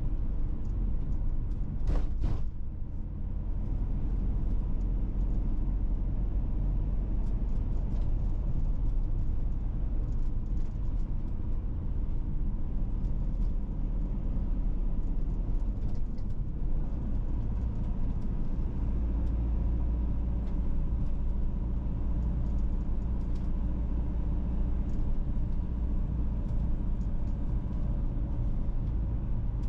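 Car being driven: a steady low rumble of engine and road noise. There is a brief rattle about two seconds in.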